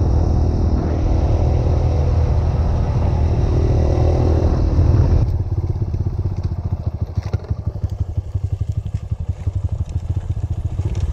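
Trail motorcycle engine running steadily under load, then about halfway through it suddenly drops to a lower, evenly pulsing beat as the revs fall.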